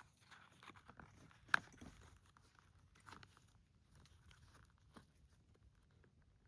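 Faint handling noise of field gear and its contents: scattered small clicks and rustles, with one sharper click about a second and a half in.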